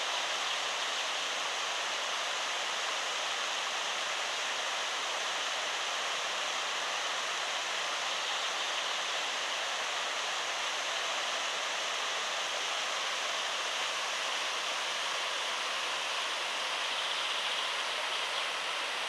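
Waterfall heard from close by: a steady, even rush of falling water.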